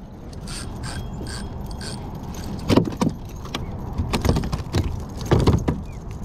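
Fishing reel and tackle clicking, with sharp knocks against a kayak while a hooked halibut is being fought and reeled in. The knocks come in a cluster during the second half.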